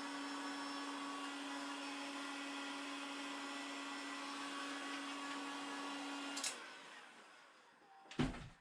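Heat gun blowing steadily with a fixed-pitch fan whine. It is switched off with a click about six and a half seconds in, its fan running down, and a single knock follows near the end.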